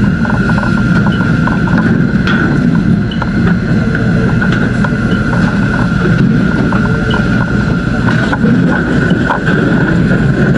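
A loud, steady engine drone with a constant high whine over it and scattered small clicks.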